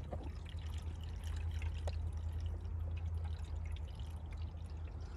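Blue coolant being poured from a plastic jug into a 1993 Volvo 240's plastic coolant expansion tank, a steady pour over a steady low hum.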